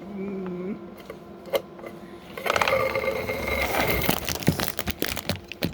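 Plastic Lego bricks clattering and clicking as pieces are handled and rummaged through. It turns loud about halfway through, then goes on as a run of sharp clicks.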